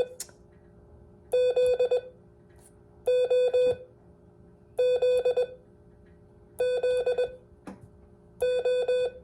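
Morse code sidetone from a Mountain Topper MTR3B transceiver keyed with a paddle, sending five practice characters, the letters O and Z. Each is a quick group of steady mid-pitched beeps, with the groups about two seconds apart.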